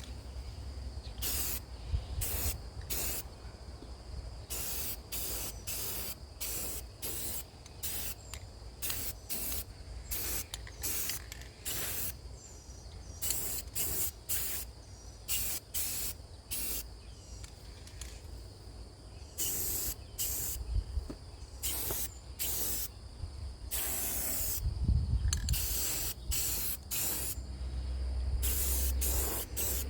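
Aerosol spray-paint can spraying black paint in many short bursts of hiss, a few held a little longer, as the frame gets a coat.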